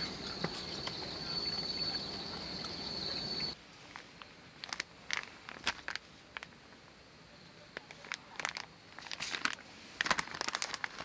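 Crickets chirring steadily in one continuous high trill that cuts off suddenly about three and a half seconds in. After that, plastic food packaging crinkles and rustles as it is handled, in scattered light clicks and crackles.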